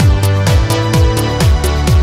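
Electronic dance music with a steady kick drum, a little over two beats a second, hi-hats and sustained synth chords.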